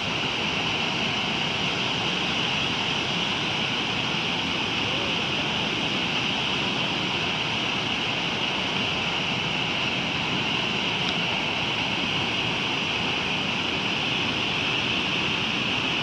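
A wide waterfall in full spate, with its swollen pool churning below: a steady, unbroken rush of falling and running water with a strong hiss.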